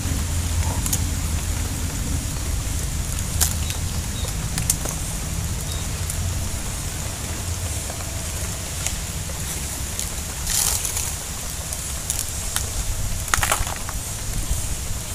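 Steady rain falling on a pond and the leaves around it: a constant hiss with scattered sharp drop ticks, over a steady low rumble.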